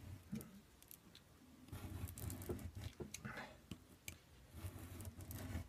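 Scissors cutting into a thick cardboard trading card: faint scattered snips and rustling of card stock.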